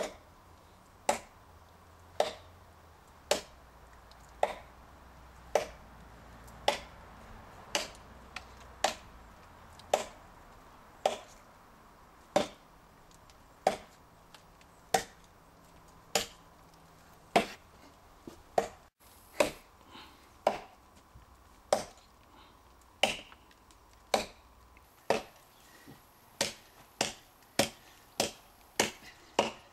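Cold Steel Trail Hawk tomahawk chopping into a hard seasoned elm log: single sharp blows about one a second, quickening to nearly two a second near the end.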